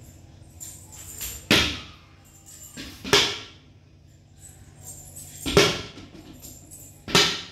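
Sharp knocks of hard objects, four times, a second and a half to two seconds apart, each followed by a brief rattling clatter.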